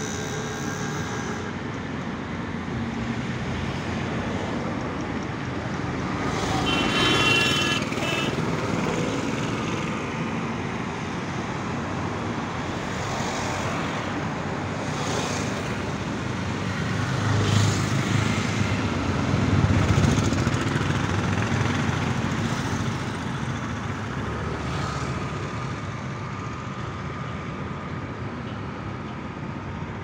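Steady hum of road traffic, with vehicles swelling louder as they pass about seven seconds and twenty seconds in.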